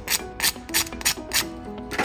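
Background music: a melody of held notes over a steady percussive beat, about three strokes a second.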